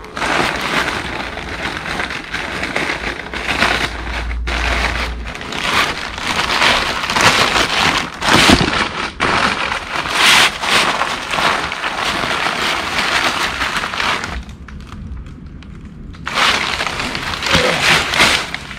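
Crumpled packing paper crinkling and rustling as it is handled and pushed aside, with a pause of about two seconds near the end.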